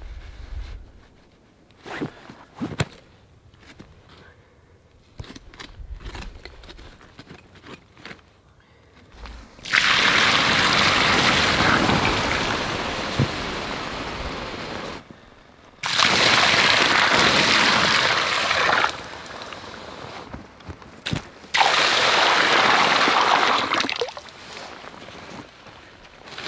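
Water poured from a bottle onto a campfire's embers in a stone fire ring, rushing and hissing as steam rises: the fire being put out. It comes in three pours about a third of the way in, the first about five seconds long and the next two shorter, after a quiet spell with a few faint knocks.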